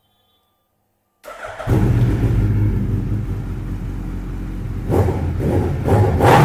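2015 Suzuki Hayabusa's inline-four engine coming in suddenly about a second in, then running steadily with a deep note, blipped twice near the end.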